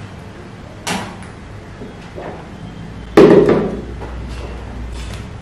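A drinking glass set down on the table with a sudden, loud knock about three seconds in, ringing briefly. A sharper, lighter click comes about a second in.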